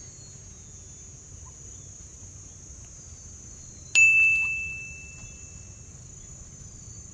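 Steady high-pitched insect drone, with a single bright ding about four seconds in that rings out and fades over a second and a half, a sound effect added as an on-screen caption appears.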